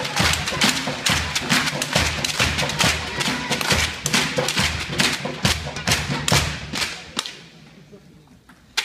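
A hall crowd clapping fast and in rhythm, with low thumps beating along, dying away about seven seconds in. A single sharp tap near the end.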